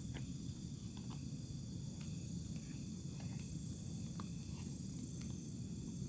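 Night chorus of crickets and other insects, a steady high trill, over a constant low rumble, with scattered brief ticks.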